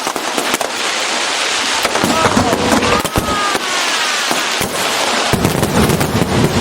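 Aerial fireworks display: a rapid series of bangs over dense, continuous crackling.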